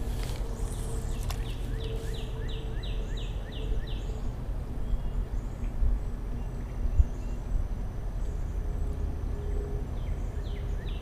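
Spinning reel being cranked to retrieve line: a quick whirring tick repeated about three to four times a second, once for a few seconds near the start and again near the end. A low wind rumble runs underneath.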